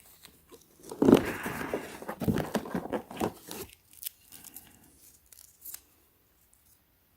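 Ratchet tie-down strap being handled: webbing rustling and scraping with light clicks of the metal hooks and ratchet, loudest between about one and four seconds in, then fainter scattered clicks.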